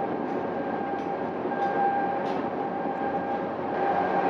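Steady mechanical drone with a steady whine held over it.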